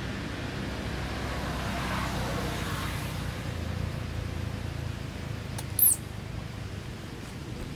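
Steady low background rumble, with one short, very high-pitched squeak that falls in pitch about six seconds in.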